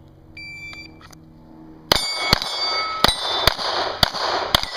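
A shot-timer start beep, then about a second later six rapid pistol shots roughly half a second apart, each answered by the clang of a steel target plate ringing on after the hit.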